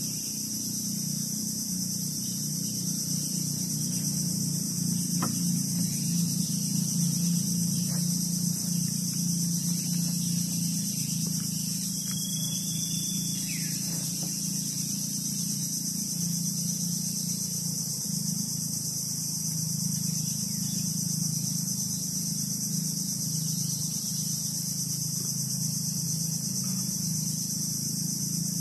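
Steady, high-pitched chorus of insects in mangrove forest, with a lower steady drone beneath it. About twelve seconds in there is a single brief chirp.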